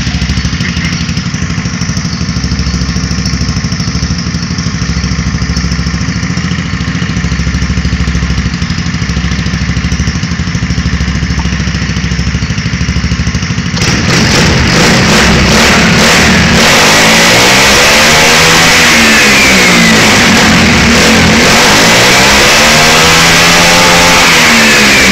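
Scooter engine running with its bodywork off and its air filter out: a steady idle, then about 14 seconds in it gets suddenly louder and revs up and back down twice.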